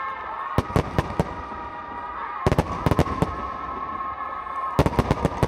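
Fireworks going off in clusters of sharp bangs and crackles, about a second in, near the middle and again near the end, over a steady high-pitched tone.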